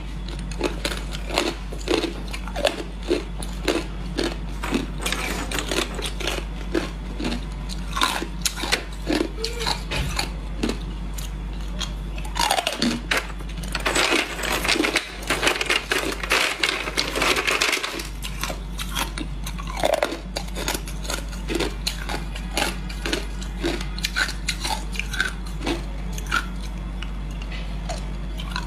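A person biting and chewing hard ice, with sharp, irregular crunches and cracks throughout and a denser stretch of crunching around the middle, over a steady low hum.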